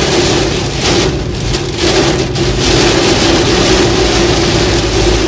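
Heavy rain pelting a car's windshield and roof, heard from inside the cabin while driving: a loud, dense, steady hiss with a steady low hum beneath it.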